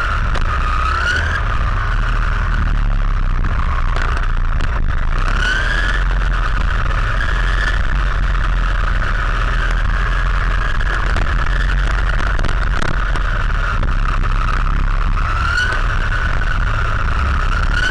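RC car's motor heard from a waterproof camera case mounted on the car: a steady high whine that glides up in pitch as the car accelerates, about a second in, around five seconds in and near the end. Underneath is a constant low rumble of the car running over the asphalt track.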